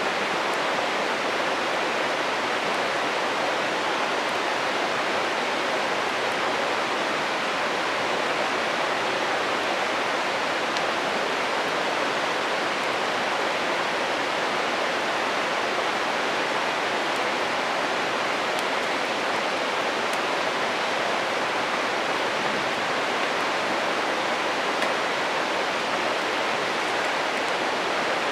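A river stream running, a steady even rushing of water, with a few faint ticks that may be the campfire crackling.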